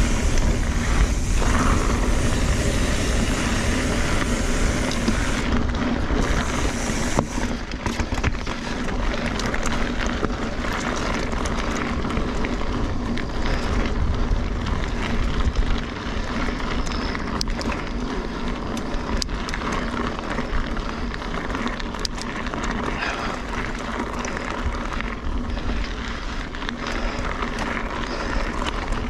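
2017 Kona Honzo hardtail mountain bike ridden over loose gravel singletrack, heard from a chest-mounted camera: tyres crunching over the rock, many small clicks and rattles from the bike, and a steady rumble of wind on the microphone.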